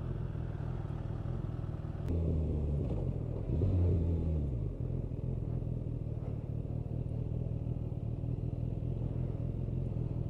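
Suzuki Bandit motorcycle's inline-four running through an Ixil aftermarket exhaust, heard from the rider's seat. It holds a steady low note, picks up about two seconds in, and revs up briefly as it accelerates before settling back to a steady cruise.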